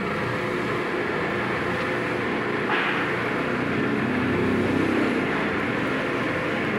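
Roofing-sheet roll-forming machine running: a steady mechanical rumble from its chain-and-sprocket drive and forming rollers. A brief higher-pitched noise rises about three seconds in.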